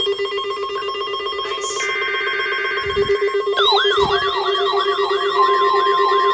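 Electronic weather-alert alarms going off together, set off by the weekly NOAA Weather Radio test signal: a fast-pulsing buzzing alarm, joined about three and a half seconds in by a wailing siren that rises and falls about three times a second, with a steady high beep added near the end.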